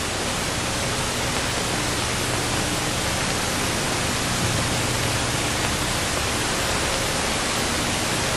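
Steady hiss with a faint low hum, the background noise of an old film or analog tape recording.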